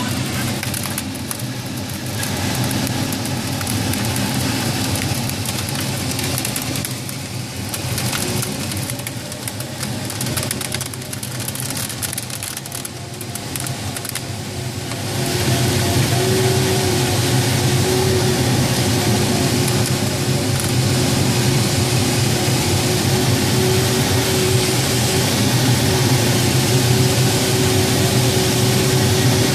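Steady rush of air past a glider's cockpit canopy in flight. About halfway through it grows louder, and a steady tone joins it.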